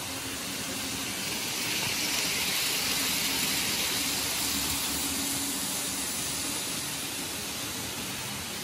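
N gauge model trains running along the track, a steady hiss of wheels and motors. It grows louder about two seconds in as two trains pass each other close by, then eases off.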